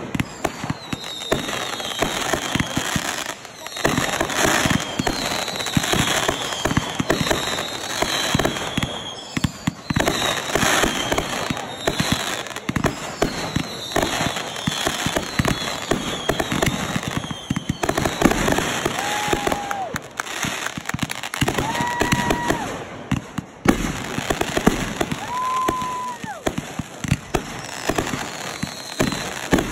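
Consumer aerial fireworks firing a rapid, continuous barrage of bangs and crackling, mixed with many short, high whistles that dip in pitch. In the second half, three longer, lower whistles sound, each lasting about a second.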